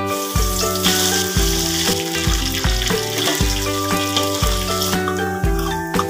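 Oil sizzling in a wok as garlic and shallots are stir-fried, over background music with a steady beat. The sizzle thins out about five seconds in.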